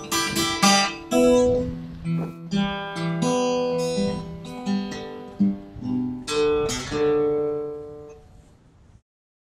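Acoustic guitar music, plucked notes with strums. A last strum about six and a half seconds in rings out and fades, and the sound cuts off near the end.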